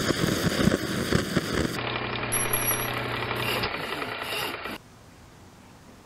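Max Sievert soldering-iron blowlamp burning on kerosene instead of its intended petrol, which gives it an oversized flame: a loud, steady rushing with uneven low pops. It is cut off about two seconds in by an intro sound effect with a steady low hum and a few brief high tones, which stops sharply about five seconds in, leaving faint room tone.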